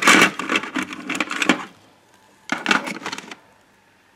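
Hands rummaging among small parts and wrappers on a workbench: a run of clicks and rustles, then a shorter burst about two and a half seconds in.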